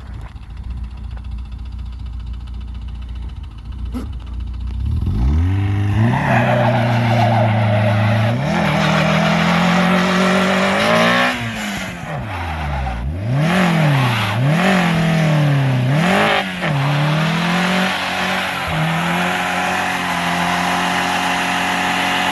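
Car engine that has developed a rod knock, doing a burnout. It runs low for about five seconds, then revs hard with the tyres spinning and squealing. The revs rise and fall several times in the middle, then are held high near the end.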